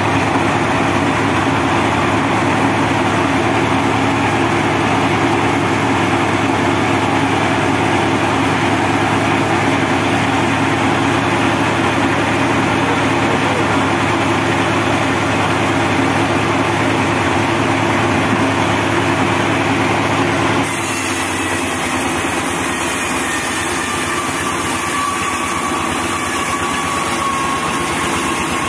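Diesel-powered homemade band sawmill running steadily with a continuous low mechanical hum. About twenty seconds in the sound changes abruptly, turning thinner and hissier with less low hum.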